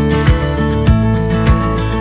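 Background music: strummed acoustic guitar in a country style over a steady beat, about one beat every 0.6 seconds.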